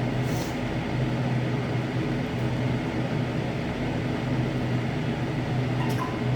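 A steady machine hum with a low droning tone, with a short hiss near the start.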